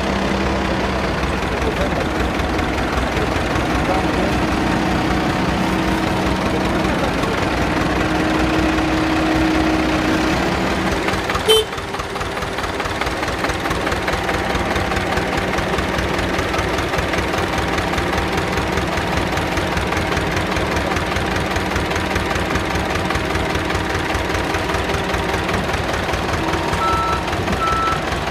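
Diesel engine of a backhoe loader running steadily close by, its note rising for a few seconds about eight seconds in. There is a sharp knock about eleven and a half seconds in, and a short repeated beeping near the end.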